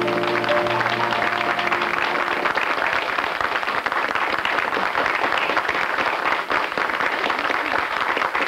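Studio audience applauding steadily, with the band's final held chord fading out under it over the first two seconds or so.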